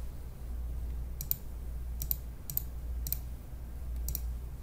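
Computer mouse clicking five times at uneven intervals, each click a quick double tick of press and release, as dates are picked in an on-screen calendar. A low steady hum runs underneath.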